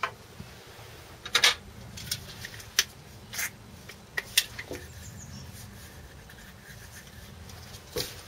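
Scattered light clicks and knocks of a hand tool and small metal parts being handled at an engine's flywheel, over a low steady hum.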